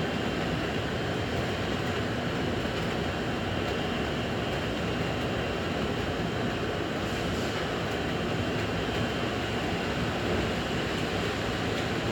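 Candy-making machine running steadily: a continuous mechanical rumble and whir with a faint high steady tone over it.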